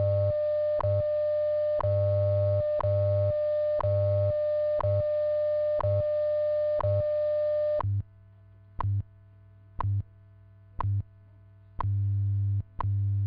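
WWV time-signal broadcast: a steady tone (600 Hz, the odd-minute tone) with a short tick every second and the 100 Hz time code pulsing low underneath. About eight seconds in the tone stops, as it does ahead of the voice announcement, leaving the once-a-second ticks and the time-code pulses.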